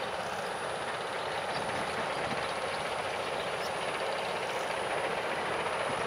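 Steady hiss of road traffic, with a thin, high, steady whine above it. No distinct bird calls stand out.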